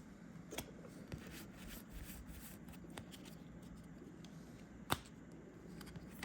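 Trading cards being handled and flipped through: faint sliding with scattered light clicks as cards snap against each other. The sharpest click comes a bit under five seconds in.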